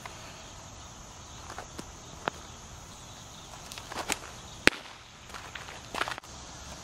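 A pitched baseball hitting the catcher's mitt with one sharp pop a little past halfway, among softer scuffs and taps of footsteps on the dirt mound.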